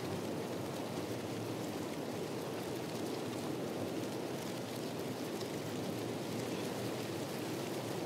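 Steady, even rushing noise with faint scattered ticks and no distinct events.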